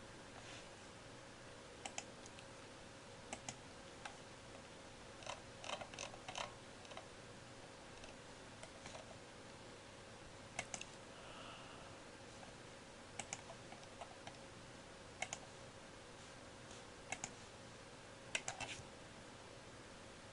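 Scattered faint clicks, singly and in short runs, over a steady faint hum.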